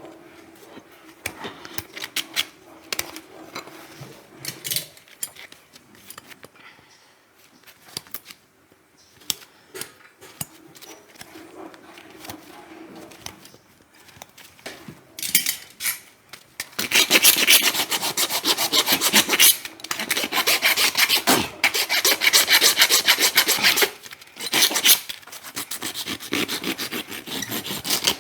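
Farrier's rasp filing a horse's hoof: light scattered scrapes at first, then a loud run of fast rasping strokes from a little past the middle, broken by short pauses.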